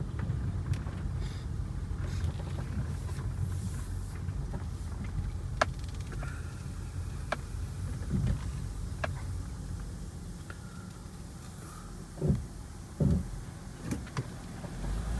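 2002 Acura MDX heard from inside the cabin: a steady low engine and road rumble as it crawls along, pulling weakly on a failing transmission. A few sharp clicks and short low thumps come over it.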